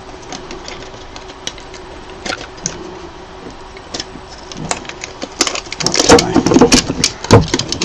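Handling noise from hands working a flat ribbon cable and LCD screen into a resin printer's plastic chassis: scattered light clicks and rustles, busiest from about five to seven seconds in, over a faint steady hum.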